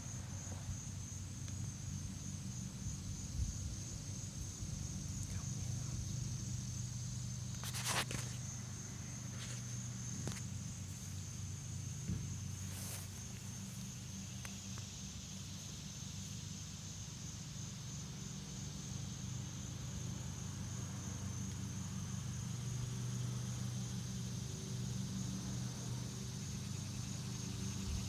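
Steady, high-pitched trilling of summer insects, with a low steady hum underneath and a few brief clicks, the loudest about eight seconds in.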